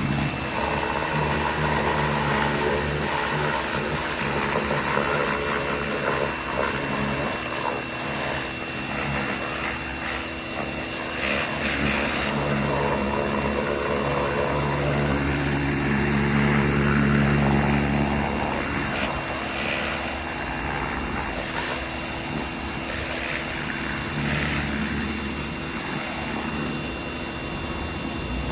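Pressure washer running steadily, its spray blasting a pinball playfield. A steady high whine runs throughout over a low running note that swells and eases.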